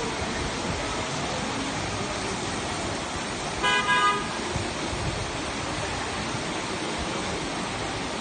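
Heavy rain pouring down with a steady hiss, and about halfway through a vehicle horn gives a short double honk.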